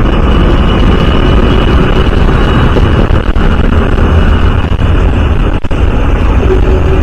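Loud, steady wind and road noise from riding a Honda CD 110 motorcycle, with a brief dip a little over halfway through.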